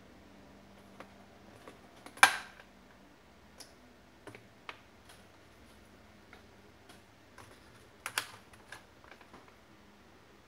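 Scattered light clicks and taps, with one sharp, loud click about two seconds in and a quick cluster of clicks around eight seconds in.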